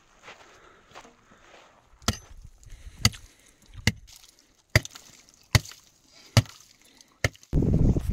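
A long-handled hand tool chopping into frozen, ash-covered ground: seven sharp strikes, about one every 0.8 s. Near the end a louder, steady rustling begins.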